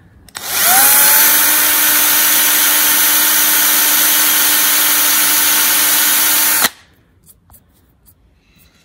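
Electric hand drill boring into the head of a rivet set in an aluminium angle, drilling the rivet out. The motor spins up about half a second in, runs at a steady high whine for about six seconds, then stops abruptly, with a few faint clicks after.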